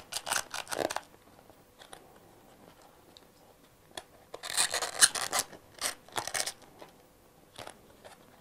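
Plastic clips scraping and rasping as they are slid onto the edges of a foam square: a short run of strokes right at the start and a longer run from about four to six and a half seconds in, with a few light clicks between.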